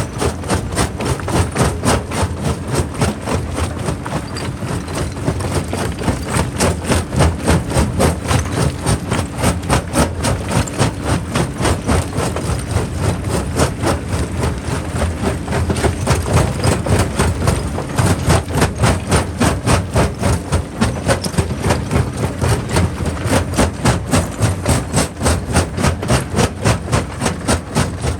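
Quarry jaw crusher running and crushing rock: a steady low machine drone with a regular pounding about four times a second.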